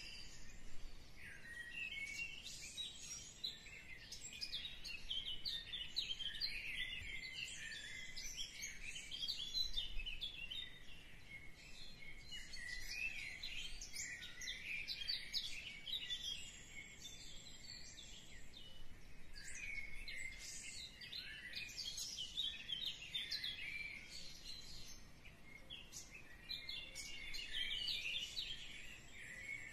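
Many small birds chirping and twittering in a dense, continuous high chatter.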